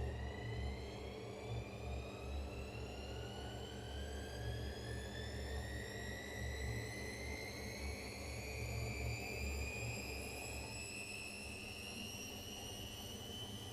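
Gorenje washing machine spinning up: the motor's whine rises slowly and steadily in pitch over a low rumble from the drum.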